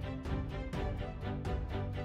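Background music with a steady beat of about four strokes a second over held notes.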